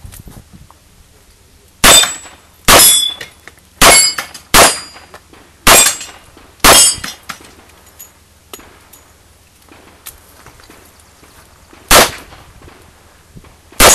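Smith & Wesson 625 revolver fired six times at a quick, even pace. Several shots are followed by the ring of hit steel targets. After a pause of about five seconds come two more shots about two seconds apart.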